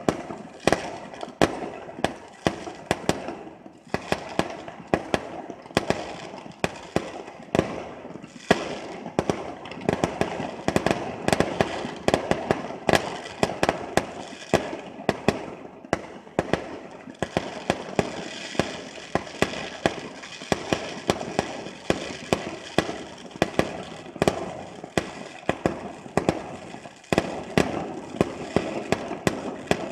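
Fireworks display: aerial shells and rockets going off in a rapid, irregular run of sharp bangs, often several a second, with a continuous din between them.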